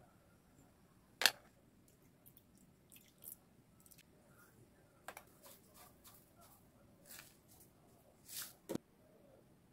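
Faint kitchen handling sounds as a soy-sauce dip is made up in a small ceramic bowl: scattered light clicks and taps of containers and utensils, with one sharp click about a second in. Near the end comes a short rustle as dried red pepper flakes are shaken from a plastic tub into the bowl, then a tap.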